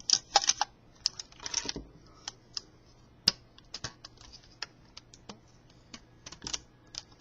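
Irregular sharp plastic clicks from Lego pieces being handled as a Lego rubber-band pistol is fitted with its slide and loaded. There is a quick cluster of clicks at the start and another about a second and a half in, then single clicks here and there.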